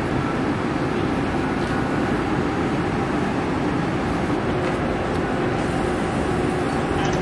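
Steady, unchanging hum of a Taiwan Railways EMU1200 electric multiple unit standing at the platform with its onboard equipment running.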